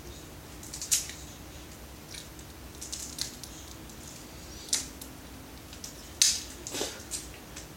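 Packaging being worked open by hand: scattered sharp crackles and clicks, with the loudest snaps about a second in, near the middle and toward the end.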